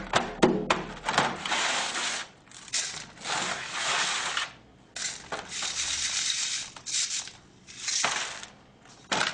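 A few sharp hammer blows on dry soil clods in a metal tray in the first second, then dry soil rubbed and worked through a wire-mesh sieve: a gritty rasping in several stretches of one to two seconds with short pauses. The soil is being broken down small enough to pass a No. 4 sieve.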